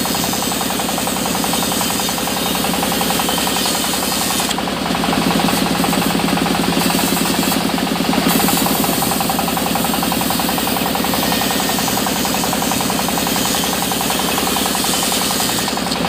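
Sawmill band saw running and ripping mahogany beams lengthwise, a loud steady rattling drone with a fast, even pulse.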